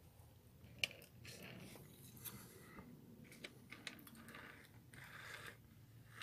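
Re-gauged H0 model train bogie with metal wheels, rolled by hand along model railway track: a faint rolling hiss that comes and goes as it is pushed back and forth, with a few light clicks, the sharpest about a second in.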